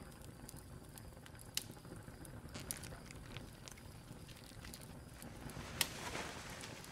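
Faint tavern background ambience: a low, steady murmur with scattered small clicks and crackles, swelling slightly near the end.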